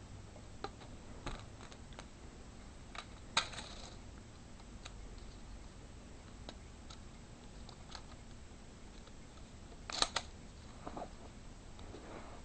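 Faint scattered clicks and taps of K'nex plastic pieces being handled while a rubber band is fitted back onto the gun, with a sharper click about three and a half seconds in and a louder pair of clicks about ten seconds in.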